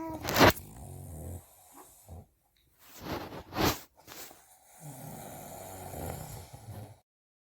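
A sleeping man snoring: irregular rasping breaths, with sharp loud bursts about half a second and three and a half seconds in, then a longer low rumbling snore near the end.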